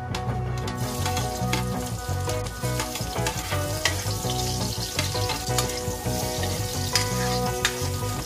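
Chopped onion and garlic sizzling in hot oil in a wok, the hiss building about a second in as they hit the pan. A metal spatula scrapes and clicks against the wok as they are stirred.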